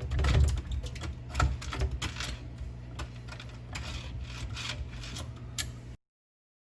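Garbage disposal unit clicking and rattling irregularly over a steady low hum, cut off abruptly near the end.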